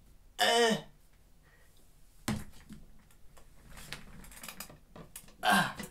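A swivel office chair with a metal frame is grabbed and dragged across the floor: a knock, then a run of small clicks and rattles from its frame and casters. Before and after it come two short strained vocal sounds from a man struggling up out of a deep squat.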